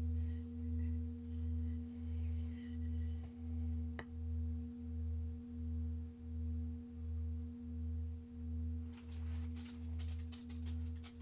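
Sustained ringing sound-meditation tones: a steady hum with a low tone that swells and fades about one and a half times a second. There is a single light tap about four seconds in and a quick run of small clicks near the end.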